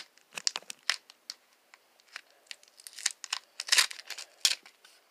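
Tape and plastic wrapping being peeled and crinkled off a homemade card pack by hand: an irregular string of short crackles and rips, with a single sharper knock near the end.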